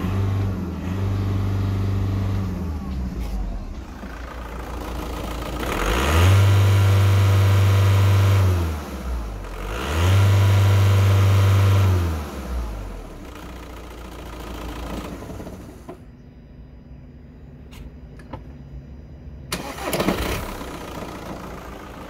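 VW Golf 5's 2.0 TDI (BKD) four-cylinder turbodiesel running and being revved. It is held at moderate revs for the first few seconds, then revved up and held twice for two to three seconds each, dropping back toward idle in between and after.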